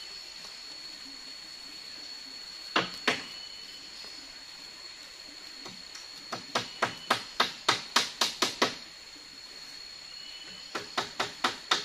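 Hammering on a bamboo frame: two knocks about three seconds in, then a quick run of about a dozen blows at four or five a second, and another run starting near the end. A steady high insect drone sounds behind.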